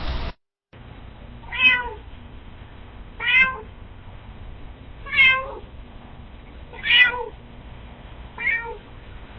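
Domestic cat meowing five times, a short call roughly every second and a half to two seconds, over a faint steady hiss. A burst of noise cuts off just before the first meow, and there is a brief click at the end.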